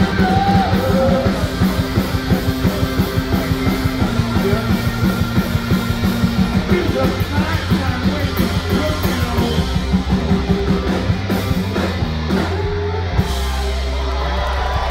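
Live rock band playing at full volume, with electric guitar, bass and drum kit keeping a steady beat. About thirteen seconds in, the drums stop and a held low chord rings on.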